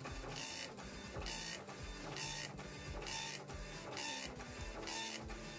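Star dot-matrix printer printing a screen copy in graphics mode: the print head buzzes across the paper in repeated passes, a little under one a second.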